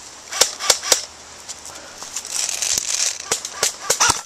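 Airsoft AK rifle firing single shots as sharp pops: three within the first second, then a quicker run of about five near the end, with a brief rustle of brush in between.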